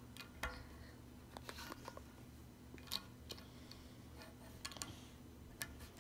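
Small plastic clicks and taps of classic Lego bricks being handled and pressed together, a few scattered light clicks, with a sharper, louder click at the very end.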